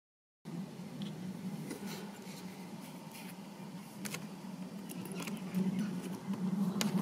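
Handling noise: light scattered clicks and rustles over a steady low hum, starting after silence about half a second in.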